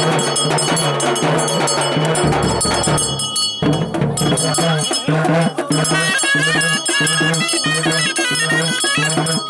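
Traditional Hindu festival music: dense, rhythmic drumming and hand percussion, with a high wind-instrument melody coming in about six seconds in.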